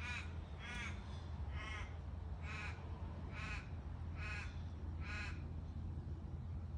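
A crow cawing: a steady series of seven short calls, a little under one a second, over a low steady background hum.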